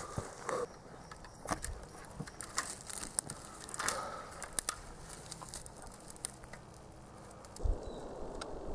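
Dry twigs and leaf litter crackling and rustling as a person crawls through brush, with scattered small clicks and a low thump near the end.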